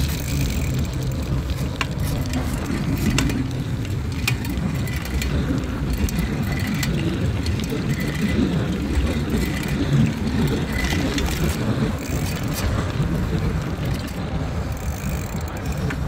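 Busy city street traffic: a steady low rumble of passing vehicles, with scattered sharp clicks and knocks.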